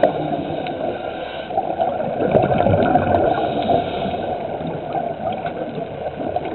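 Steady, muffled water noise picked up by a camera underwater, with faint scattered clicks and crackles.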